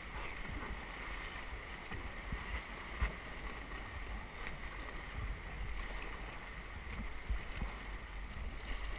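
Rushing whitewater of a river rapid around an inflatable raft, with low rumbling buffeting on the camera from wind and spray. A couple of short sharp knocks stand out, about three seconds in and again about seven seconds in.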